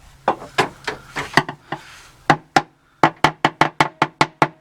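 Repeated tapping on the sheet-steel floor pan of a 1986 Mustang GT where Fat Mat sound-deadening mat has been applied, each tap a short dull thud. The taps come irregularly at first, then from about two seconds in as a faster, steady run of about four a second that ring a little.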